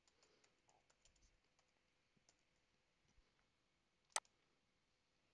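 Faint computer keyboard typing, a few light key taps over the first second or so, then a single sharp mouse click about four seconds in.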